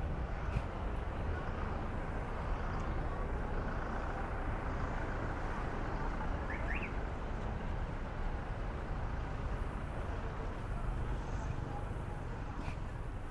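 Steady city-street traffic noise: a continuous low rumble of passing cars and motorbikes with no single vehicle standing out.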